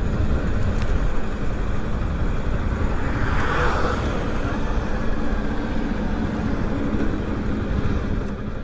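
Honda CBR250R's single-cylinder engine running at a steady low pace, heard under wind rushing over the helmet-camera microphone, with a brief swell of hiss about three and a half seconds in.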